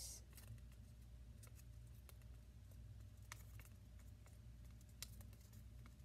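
Near silence with a few faint, scattered ticks and soft rubbing from a glue stick being worked along a folded paper heart.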